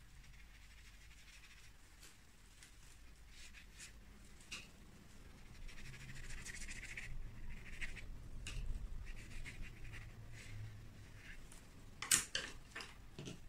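Faint swishing and scratching of a watercolor brush stroking paper, with small scattered taps. About twelve seconds in, a brief sharp clatter of a few clicks as a brush is put down and another picked up.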